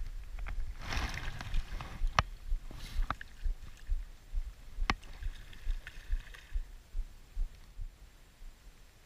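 Water splashing and sloshing as a released steelhead kicks free of the hand and swims off through shallow creek water, the main splash about a second in. Several sharp clicks and low thumps come from handling close to the camera.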